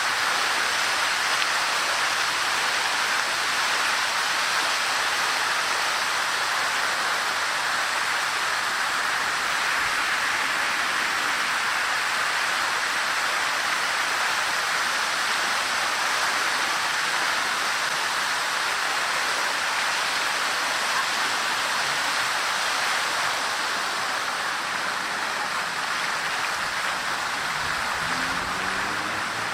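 Statue fountain's water splashing steadily into its basin, an even rushing hiss.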